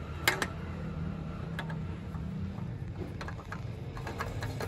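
New spin-on oil filter being screwed by hand onto a Suzuki Alto's engine, giving a sharp double click near the start and scattered light ticks as the canister turns on its thread. A steady low hum runs underneath.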